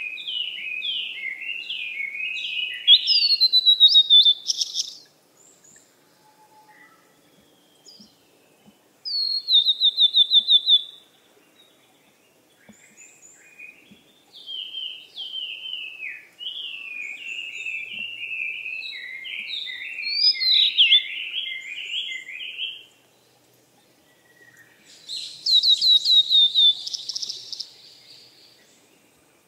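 Songbirds singing: two long, rapid warbling phrases and two short runs of quick falling notes, with pauses between them.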